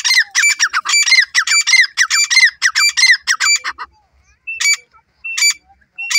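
Grey francolin calling: a fast, continuous run of loud, harsh, repeated notes for nearly four seconds. After a short pause come single notes about one every three-quarters of a second.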